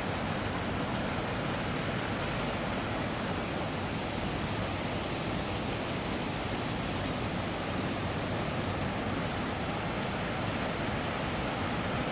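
Waterfall rushing steadily, hidden down between rocks: an even, unbroken sound of falling water.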